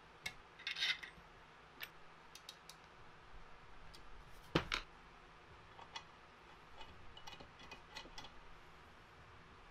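Scattered light clicks and scrapes of a metal pick working leftover support material out of the bolt holes of a 3D-printed plastic adapter plate, with one sharper knock about four and a half seconds in.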